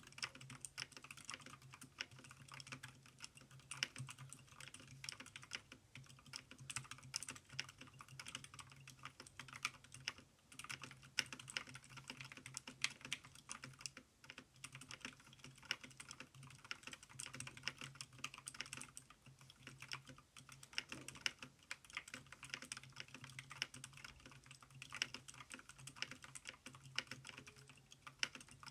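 Continuous fast typing on a mechanical keyboard with heavily lubricated blue clicky switches and rubber O-rings under the keycaps: a dense, steady stream of key clicks.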